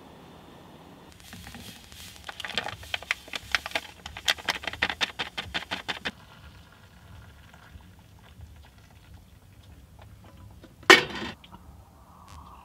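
Making a mug of hot chocolate in an enamel mug: a few seconds of rapid light scraping and clinking strokes, about five a second, that stop sharply, then one sharp knock near the end.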